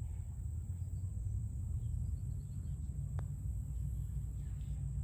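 A single faint click about three seconds in: a putter striking a golf ball on a long putt. A steady low rumble runs underneath.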